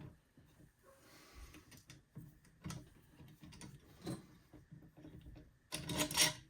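Scattered light knocks and clicks as the lid and parts of a small electric melting furnace are handled and set down, with a louder scraping rattle near the end.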